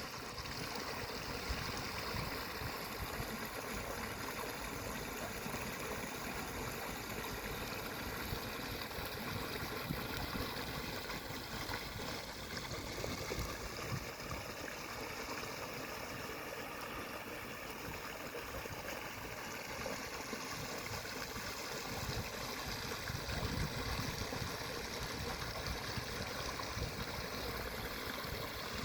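Running water flowing steadily, with a continuous gurgling rush.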